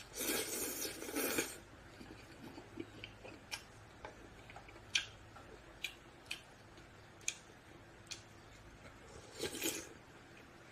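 Chicken kalguksu noodles slurped: a long slurp of over a second at the start and a shorter one near the end, with scattered light clicks between.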